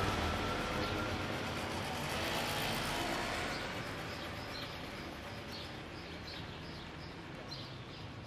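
Street traffic noise fading away after a vehicle passes, with a regular run of short high chirps, about two a second, starting about halfway through.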